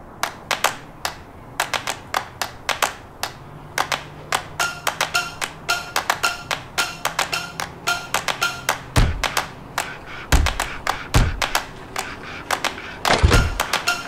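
Percussive background music: a quick, irregular run of light wooden taps, with deep thuds joining about nine seconds in.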